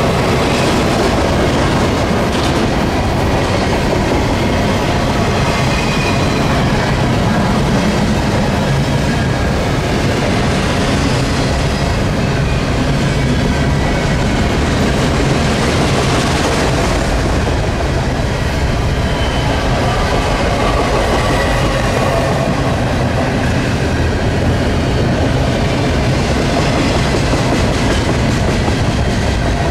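Double-stack intermodal container train's well cars rolling past close by: steel wheels running on the rails, loud and steady.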